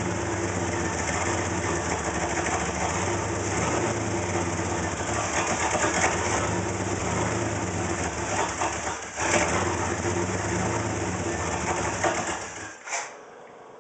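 A 301 engine idling with a rough idle, running steadily, then shut off near the end, with a brief click just after it dies.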